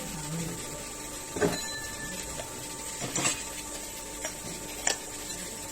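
Workshop sounds: a steady faint machine hum with four or five short, sharp clicks and knocks scattered through it.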